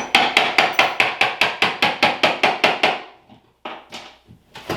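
A fast, even run of about twenty sharp strikes on hard material, roughly seven a second for three seconds, then a few scattered knocks: a tool chipping away at the old bathroom backsplash. Really loud.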